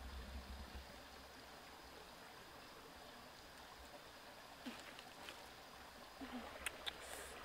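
Faint, steady rush of flowing stream water with a low rumble beneath it. A few small clicks and knocks come in the second half, the sharpest near the end.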